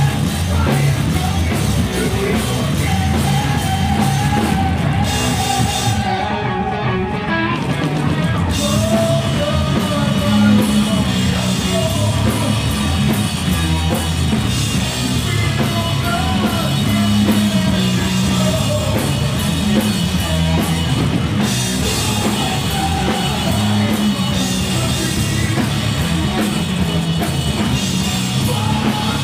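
Stoner rock band playing live: distorted electric guitars, bass and a drum kit, with a singer's vocals over them. The cymbals drop out for about two seconds roughly six seconds in.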